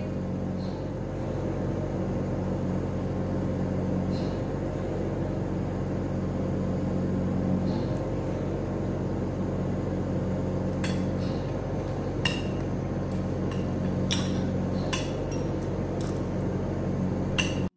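Stainless spoon and fork clinking against a plate of rice and chicken during eating: a few short, scattered clinks, mostly in the second half. A steady low hum of room noise runs underneath.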